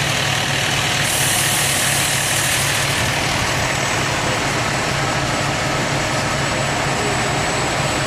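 Diesel engine of a fire department aerial ladder truck idling and creeping forward in traffic, a steady low engine note.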